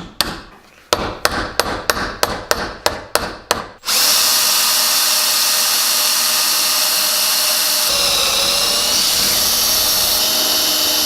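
A quick run of hammer blows on metal, about three a second, knocking at the steering rack's retaining pins; a bit under four seconds in an electric drill starts and runs steadily, drilling the pins out, its pitch dipping briefly around eight seconds in as it loads up.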